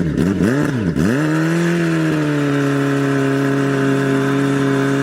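Car engine blipped twice in quick swoops, then held at a steady pitch.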